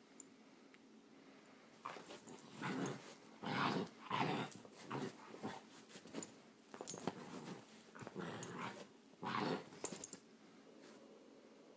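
Great Dane puppy growling in a string of short bursts over about eight seconds, starting about two seconds in.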